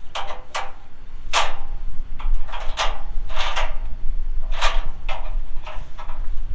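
About a dozen irregular clacks and clicks, some with a short metallic ring, over a steady low rumble.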